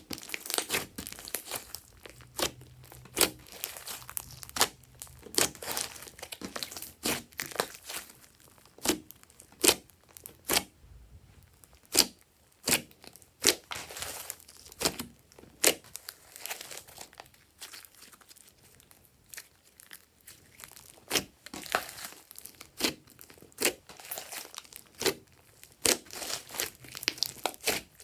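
Glossy slime being kneaded and stretched by hand, giving irregular sharp pops and clicks in clusters, with brief lulls.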